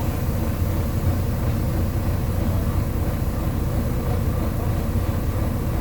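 Volvo B9TL double-decker bus's six-cylinder diesel engine running steadily, a constant low drone, heard from on board.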